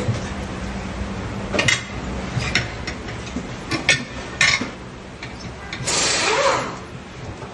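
Workshop clatter: a few sharp metallic clinks and knocks, then a short hiss about six seconds in.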